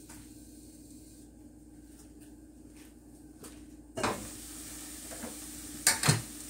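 A lidded Princess House Vida Sana stainless-steel pot, quiet at first. About two-thirds of the way in the lid is lifted and the sizzle of chicken searing inside comes out as a steady hiss. Two sharp metal clinks of the lid or utensils follow near the end.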